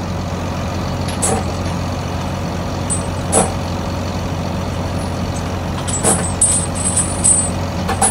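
Heavy steel flail chains clinking now and then as they are handled and hung on a flail drum: several sharp metallic clinks a few seconds apart, over a steady low machine hum.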